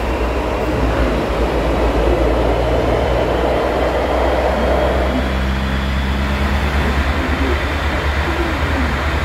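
Subway train running through a tunnel, heard inside the passenger car: a steady deep rumble of wheels on the rails with a low motor hum. A rushing noise swells in the middle and falls away about five seconds in.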